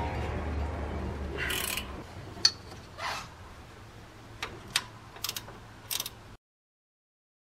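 Hand tools working on the front of the engine: scattered metallic clicks and short scrapes from a wrench or ratchet around the alternator and water pump, with a quick cluster of clicks about five seconds in. The sound cuts out abruptly about a second before the end.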